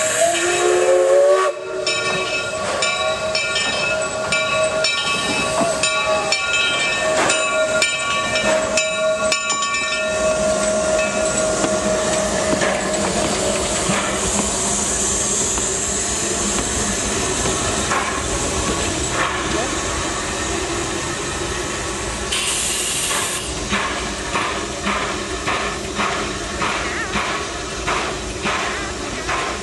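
1925 Baldwin narrow-gauge steam locomotive sounding long blasts on its steam whistle, a chord whose pitch slides up as the valve opens and holds for the first several seconds. Then a steady hiss of steam with a sharp burst of hiss about two-thirds through. Near the end the exhaust chuffs about twice a second as the locomotive gets under way.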